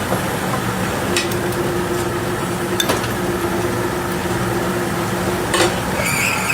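Workshop machinery running steadily with a hissing noise and a low hum. A faint steady tone comes in about a second in and stops with a click near the end, and a few sharp metallic clicks occur along the way.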